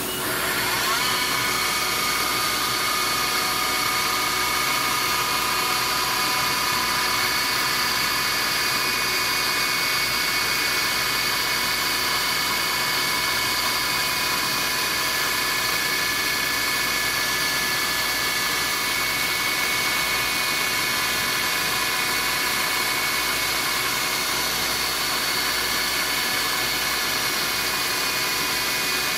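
CNC milling machine running a program, its end mill cutting an aluminium cam tray. A whine from the spindle and cut rises in the first second, then holds steady over a constant hiss from the coolant mist sprayer.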